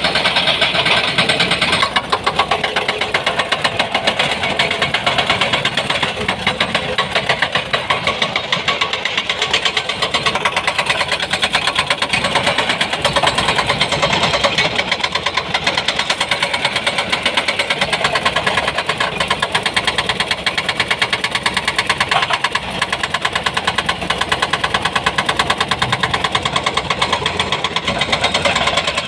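Excavator's diesel engine running steadily, with a fast, even knock of firing pulses throughout.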